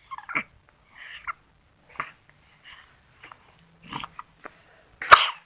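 A sick baby's short coughs and breathy huffs, a few spaced about a second apart, with the loudest cough near the end: a chesty cough from illness.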